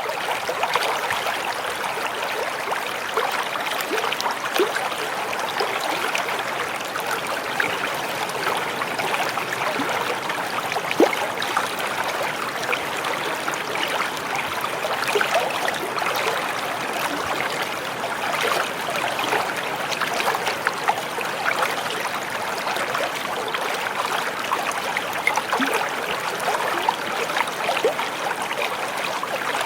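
Stream of water running over rocks: a steady rush of flowing water with many small splashes.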